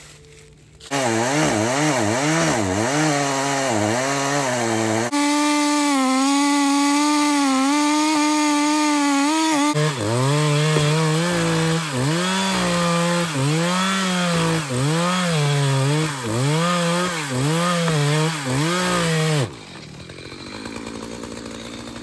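Two-stroke chainsaw cutting through a fallen oak trunk, its engine pitch repeatedly dropping and rising as the chain bites into the wood. The sound quiets sharply near the end.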